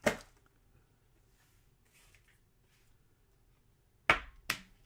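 Three sharp snaps: one at the start, then two about half a second apart near the end, with near quiet in between.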